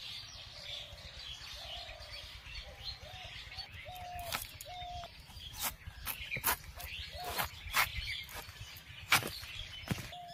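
Young green jackfruit being cut in half on a boti's fixed blade, giving a series of sharp crunching clicks from about four seconds in, roughly one a second. Birds chirp throughout.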